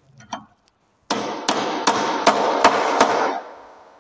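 A hammer striking the bench's metal frame six times in quick, even succession, about two and a half blows a second. The metal rings between the blows and the ringing fades away after the last.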